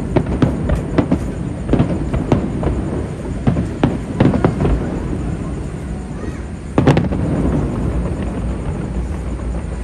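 Fireworks going off in a quick string of sharp bangs and pops, thinning out after about five seconds, with one loud bang a little before seven seconds in.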